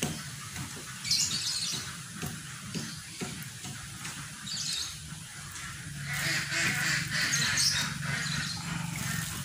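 Birds calling in short high-pitched bursts, with a denser stretch of calls or rustling past the middle, over a steady low hum.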